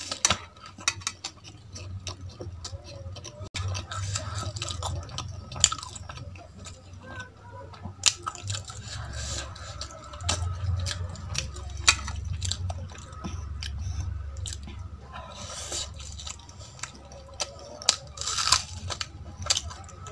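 Close-miked eating: chewing of aloo paratha dipped in dal, with wet mouth smacks and sharp clicks scattered irregularly.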